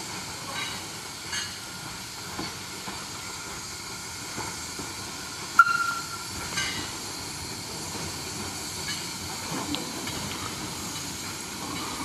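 Small Hunslet narrow-gauge saddle-tank steam locomotive running slowly, its steam hissing steadily, with a few light knocks. About halfway through there is one short, sharp, high-pitched sound, the loudest moment.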